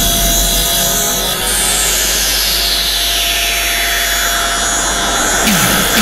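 Electric bench grinder running steadily while a small part is held against its spinning wheel.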